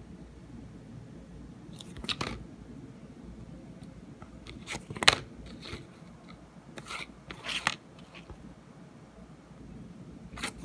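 Cardboard 2x2 coin holders being handled and slid against one another: a few short, crisp scrapes and taps, about two seconds in, loudest about five seconds in, and again around seven to eight seconds.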